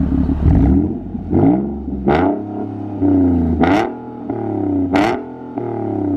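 Nissan 370Z's 3.7-litre V6 blipped about five times through a Motordyne Shockwave exhaust, the pitch shooting up sharply on each rev and sliding back down toward idle in between.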